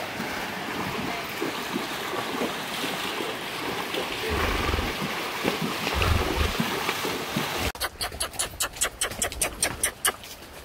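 Horses wading through a shallow river, their legs churning up a steady splashing of water. About three-quarters of the way in this gives way suddenly to horses' hooves on a dirt trail, an even run of sharp clops about five a second.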